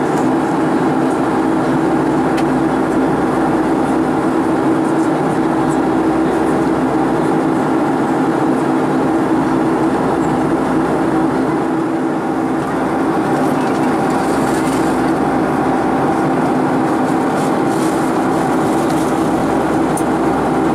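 Steady cabin noise of a Boeing 757-330 in cruise, heard at a window seat over the wing: a constant engine drone and rush of air with a steady low hum.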